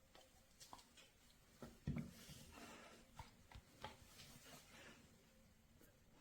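Faint gnawing on a natural-rubber chew bone by a dog: scattered soft clicks and taps, with one thump about two seconds in.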